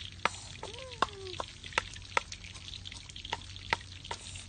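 Wooden pestle pounding chillies in a mortar: sharp, uneven knocks, about two a second.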